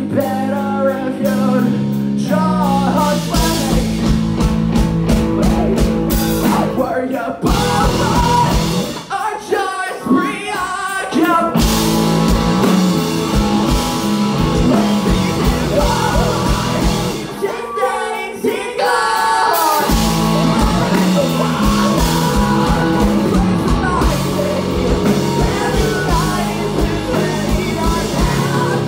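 Live rock band playing loudly: singing over electric guitars, bass and drum kit. The drums and bass drop out briefly twice, leaving the voice and guitars.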